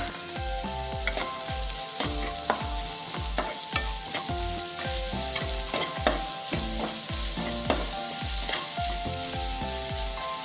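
Chopped vegetables sizzling in oil in a pan as a spatula stirs and scrapes them. Background music with a steady beat of about two to three thumps a second plays throughout.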